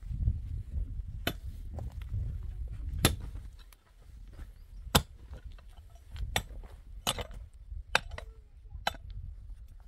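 A series of sharp knocks or strikes, irregularly spaced about a second apart, over a low rumble that fades out about four seconds in.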